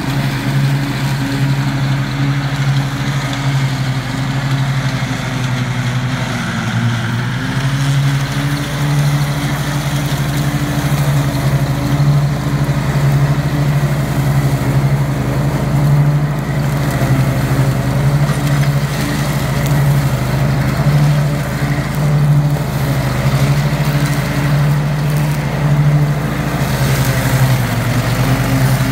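Husqvarna ride-on lawn tractor's engine running steadily with its mower deck cutting through blackberry brambles. The engine note dips briefly about seven seconds in and recovers.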